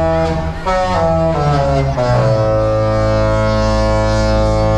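The Disney Fantasy cruise ship's musical horn sounding a tune: a few short notes that step in pitch, then one long held note that stops at the end.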